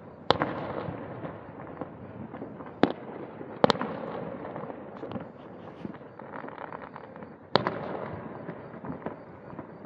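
Aerial fireworks shells bursting: about four sharp booms spread over the stretch, each followed by a rumbling tail with crackle between them.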